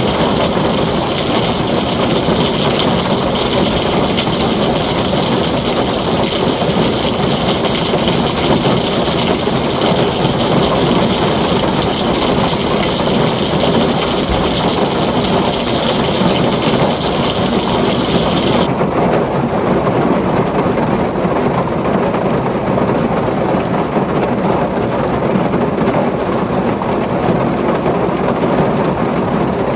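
Heavy rain falling steadily on a tin roof, with a low rumble underneath. About two-thirds of the way through, the high hiss suddenly drops away and the rain sounds duller.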